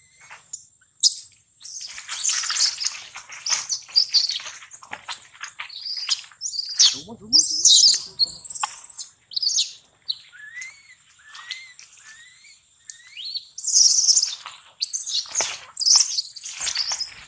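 Baby monkey crying in shrill, high-pitched screams and squeals, in irregular bursts, with a few short rising squeaks in the middle.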